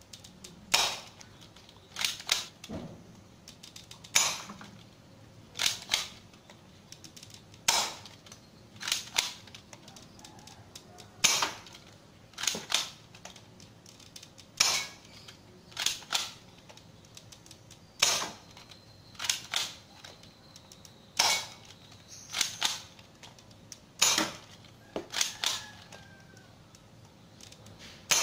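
Spring-powered Glock 18C replica gel-ball blaster with a metal slide being fired over and over: sharp snaps, singly or in quick pairs, about every one and a half seconds, as each shot is fired and the slide is worked to cock the spring for the next.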